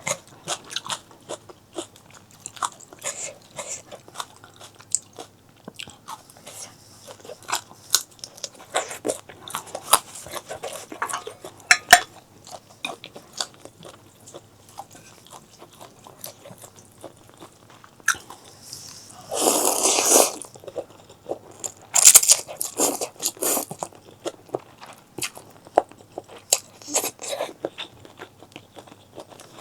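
Close-miked eating sounds: a person chewing and biting food, with many small wet mouth clicks and a louder noisy stretch of about a second roughly two-thirds of the way through.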